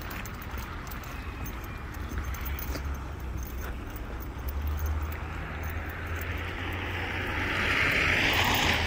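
Road traffic on a city street: a steady low rumble of passing cars, with the tyre hiss of a vehicle growing louder and passing close about eight seconds in.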